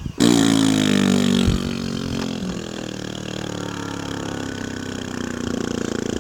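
A recorded droning sound with many overtones, engine-like, played back through a mini subwoofer speaker. It starts suddenly, sinks a little in pitch over the first second, then holds steady and cuts off abruptly near the end.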